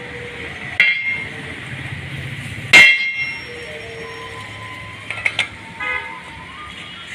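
Sharp metal clanks that ring on, five in all, the loudest about three seconds in: a power loom's steel crankshaft knocking against its cast bearing blocks as it is handled and fitted.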